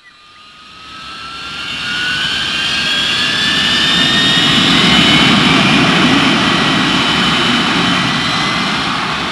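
Jet engine sound of a spacecraft flying over: a rushing roar with high whines that slowly rise in pitch, building up over the first two seconds and easing off a little near the end.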